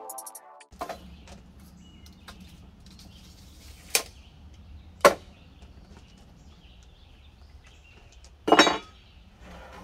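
A few sharp wooden knocks and a short clatter as 2x4 boards and a circular saw are handled on sawhorses, over a low steady hum. The loudest knock comes about five seconds in, and a brief rougher clatter near the end.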